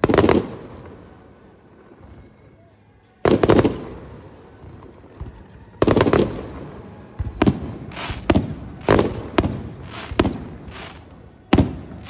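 Aerial firework shells bursting overhead, each sharp bang trailing off in an echo. Three spaced bursts are followed by a quicker run of about seven in the second half.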